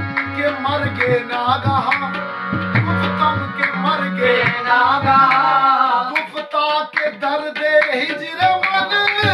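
Qawwali: a lead singer's voice over harmonium, with tabla drumming and a chorus member clapping along. The low drum strokes drop away for a couple of seconds past the middle, then return.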